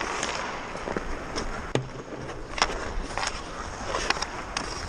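Ice hockey skates scraping across the rink ice, with five or so sharp clacks of stick, puck and boards; the loudest comes a bit past halfway.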